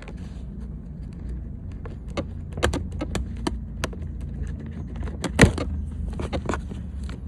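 Sharp plastic clicks and knocks as a door-panel wiring harness connector is unplugged and the loose panel handled, with one louder knock about five and a half seconds in, over a steady low hum.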